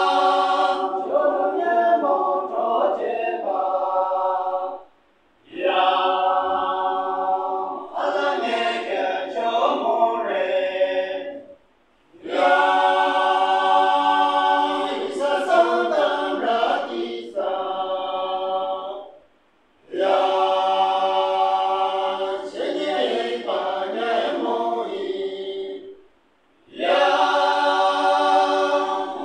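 Men's choir singing a cappella in parts, in phrases about seven seconds long with four short breaks for breath between them.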